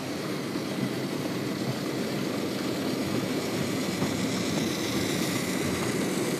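Steady rumble of HO-scale model trains running on Märklin track.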